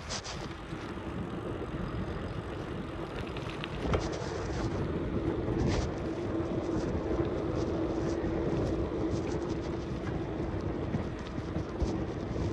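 Riding noise of a bicycle recorded from the bike: wind on the microphone and tyres rolling on the path. A steady hum comes in about four seconds in and holds to the end.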